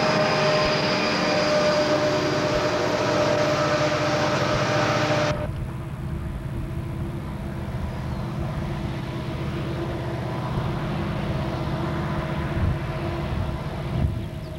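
Southern Pacific diesel locomotives passing close under power: a loud engine drone with steady tones. About five seconds in, the sound cuts abruptly to a quieter, low rumble of a distant diesel train.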